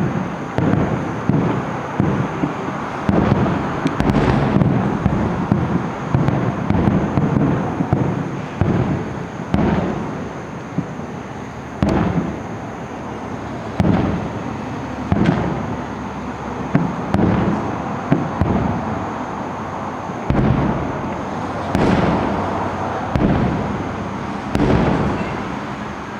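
Aerial firework shells bursting in quick succession, a sharp boom about every second or so, with rumbling echoes that run on between the bursts.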